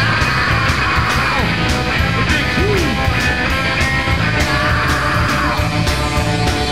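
Rock music with a steady, fast drum beat.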